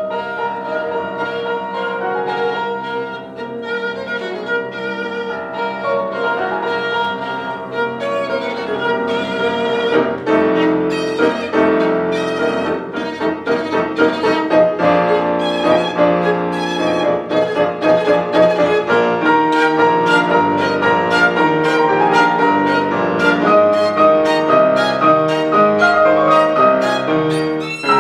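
Violin and grand piano playing classical music together, the violin carrying the sustained melody. The playing grows louder and busier, with quicker notes, about ten seconds in.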